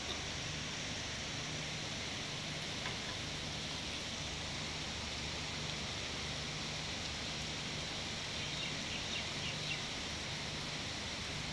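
Steady hiss of heavy rain falling on trees, roads and buildings.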